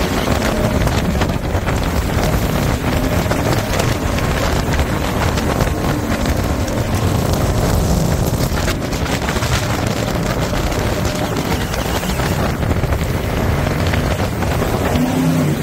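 Jet boat running at speed up a shallow river: a steady, loud mix of engine and water-jet noise and rushing water, with heavy wind buffeting the microphone.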